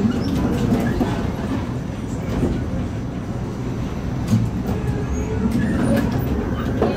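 Cabin noise inside a Tatra T4R tram creeping slowly along the track: a steady low rumble and rattle, with a few sharp clicks and knocks, the loudest a little past four seconds in.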